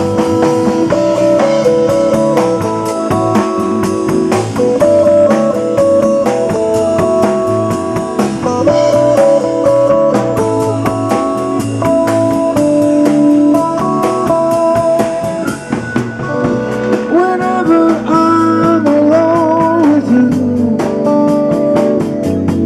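A live band plays a slow love song: a guitar-led melody over bass and drums, with a steady cymbal beat. In the second half a lead line bends up and down in pitch.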